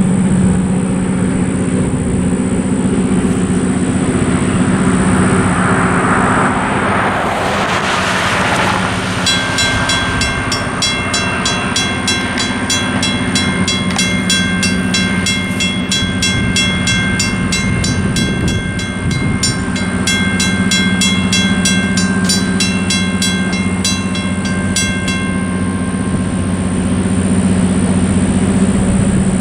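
Railroad crossing warning bell starting up about nine seconds in, ringing in rapid strokes, and falling silent a few seconds before the end as the gates come down. Under it runs a steady low engine drone from the approaching train, and a road vehicle swishes past just before the bell starts.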